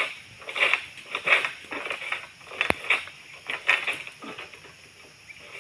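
Harvesting sickle on a long pole cutting at the stalk of an oil palm fruit bunch: repeated rasping strokes about one and a half a second, with one sharp click partway through, easing off near the end.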